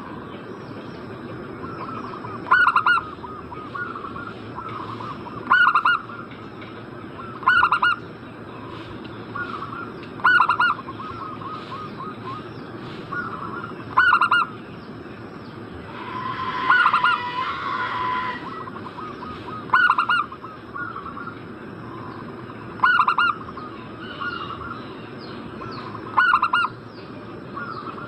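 Zebra doves (perkutut) cooing: a loud call comes about every three seconds with softer calls between them. A longer, busier run of calls comes around the middle.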